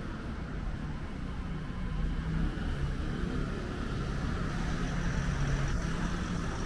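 Steady low rumble of a running vehicle, with a faint low hum throughout.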